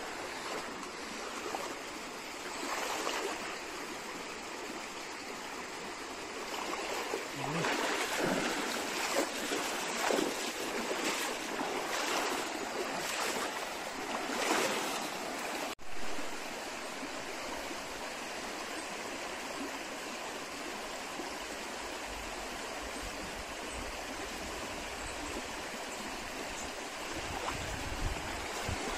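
Shallow, rocky stream running over stones in small riffles: a steady rush of water, with a few louder surges roughly a third to halfway in.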